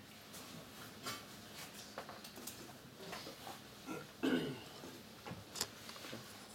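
Scattered small knocks and rustling in a small room, with a louder short sound about four seconds in as coffee is sipped from a mug.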